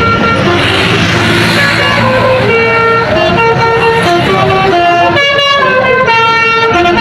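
A tour bus's telolet basuri musical horn playing a quick tune of stepped horn notes, with the bus's engine rumbling underneath at first.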